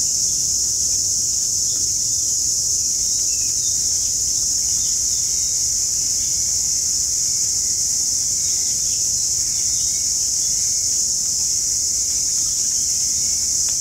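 A loud, steady, high-pitched insect chorus drones without a break, with faint short bird chirps here and there beneath it.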